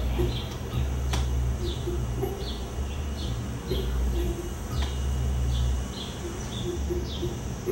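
Birds calling: a small bird giving short falling chirps, about one or two a second, with a dove cooing in short low groups, over a steady low rumble.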